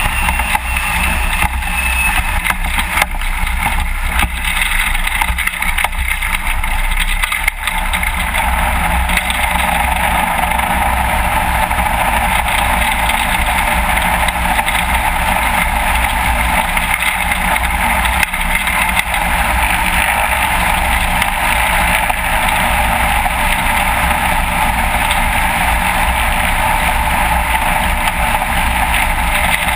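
Light aircraft's piston engine and propeller running steadily at low power while the plane taxis.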